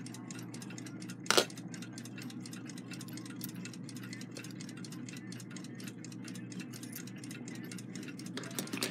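Small brass and steel clock parts clicking as a dismantled alarm-clock movement is handled: one sharp metallic click about a second and a half in and a few faint clicks near the end, over a steady low hum.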